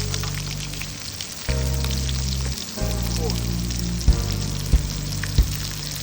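Background music: sustained low chords that change every second or so, a few sharp beats in the second half, over a steady crackling hiss.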